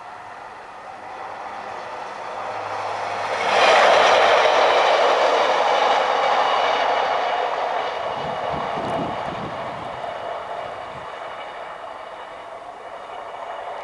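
Class 142 Pacer two-car diesel railbus running past on the main line, its wheel and engine noise rising sharply about three and a half seconds in, then fading slowly as it draws away.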